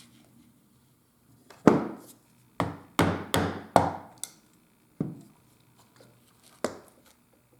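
Hammer knocks in leatherwork: about seven sharp strikes at uneven spacing, four of them in quick succession in the middle.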